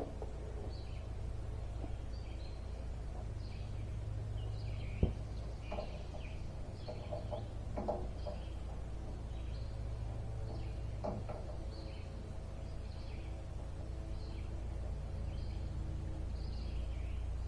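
Birds chirping repeatedly over a steady low hum, with a sharp click about five seconds in and a few lighter knocks later on.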